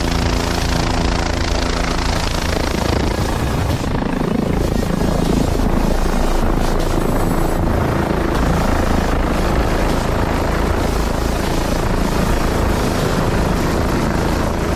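A helicopter comes in to land close by, then sits on the snow with its rotor turning, making loud, steady rotor and engine noise.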